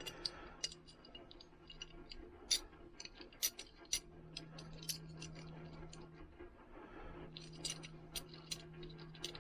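Scattered small clicks and light metallic taps from a utility knife and its blades being handled and fitted together, over a faint steady hum.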